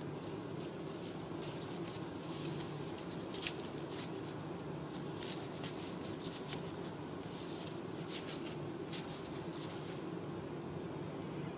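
Ragdoll kittens at play: bursts of scratchy rustling from claws and paws on straw and sisal toys, with a couple of sharp clicks, over a steady low hum.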